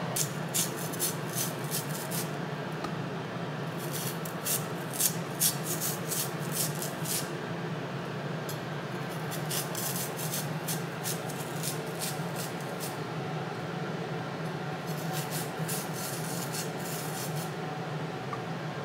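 Kitchen knife scraping the skin off a Chinese yam in runs of quick rasping strokes, about four a second, with short pauses between the runs, over a steady low hum.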